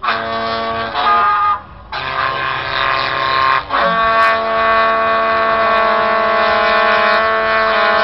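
Train horns played from a keytar, sounding loud held chords: a blast of about a second and a half, a short break, then one long chord that drops out briefly near the middle and carries on.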